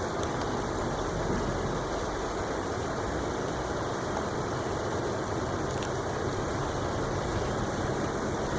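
Steady, even rushing noise with a low hum underneath and no distinct events.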